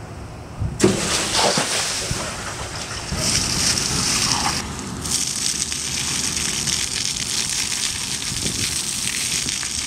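Water gushing out of the open end of a geothermal loop flush hose in a high-pressure spray, a steady hiss. It starts suddenly about a second in and breaks off briefly near the middle.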